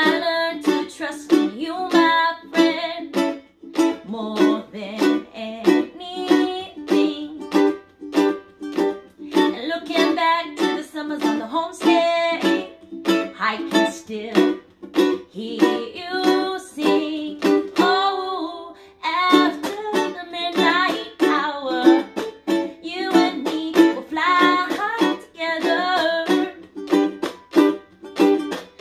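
A ukulele strummed in a steady rhythm with a woman singing along. About eighteen seconds in, the strumming stops briefly under a held, wavering sung note, then starts again.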